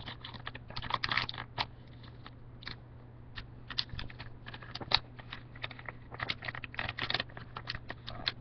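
A folded sheet of paper crinkling, with irregular short crackles and taps, as the pinwheel's flaps are pushed out and pressed flat by hand. A low steady hum lies underneath.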